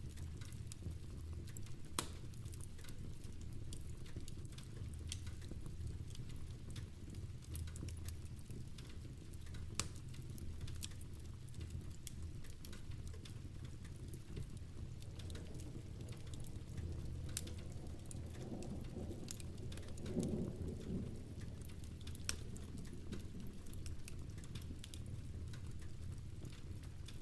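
Steady rain with a crackling wood fire: a constant low rumble with scattered sharp pops and crackles, and a soft low swell about twenty seconds in.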